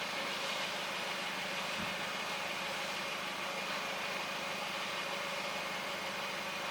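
A steady hiss with a faint, even engine hum, with a small thump about two seconds in.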